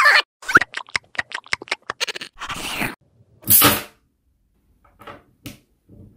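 Cartoon sound effects for a magnetic-ball stop-motion figure. There is a short voice-like cry, then a rapid run of about a dozen clicks and a brief hiss. About three and a half seconds in comes a loud noisy burst as the figure collapses onto a large magnet, followed by a few faint clicks.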